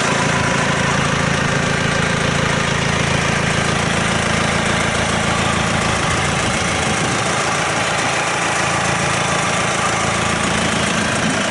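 John Deere 4700 tractor's diesel engine idling steadily, heard close to the open engine bay.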